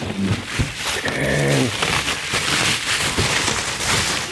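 Bubble wrap and plastic packaging crinkling and rustling as it is pulled off a steel plate and the plate shifts in its cardboard box. A brief low voice-like sound about a second in.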